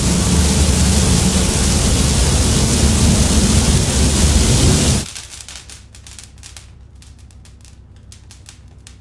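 A dry Christmas tree burning: a loud, steady roar of flames. About five seconds in it drops suddenly to quieter, irregular crackling.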